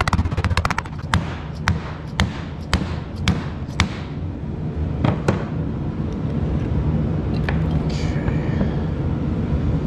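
Sharp clicks from hand work on the aerator motor's internal wiring: a quick run of clicks, then single clicks about every half second for a few seconds and a few more later, over a steady low hum.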